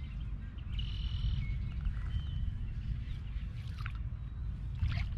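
Steady low wind rumble on the microphone, with faint bird chirps about one and two seconds in and a couple of soft clicks near the end.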